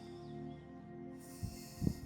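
Soft background music of sustained, steady tones, with two dull low thumps near the end.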